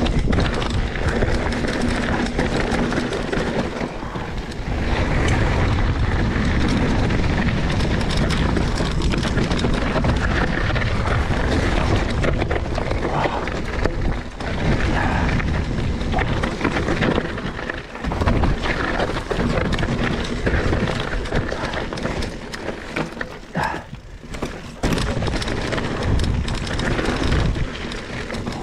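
Wind buffeting the microphone over the rumble of a Trek Remedy 27.5 mountain bike's tyres rolling fast over dirt and loose rocks on a downhill trail, with brief dips in level as the bike slows.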